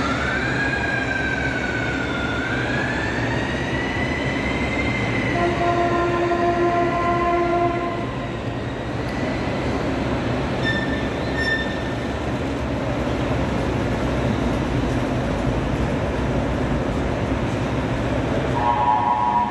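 Vehicle horns sounding over a steady rumble of engines: a high wailing tone rising and falling over the first few seconds, then a single horn held for about two seconds, a short high beep, and a chord horn starting near the end.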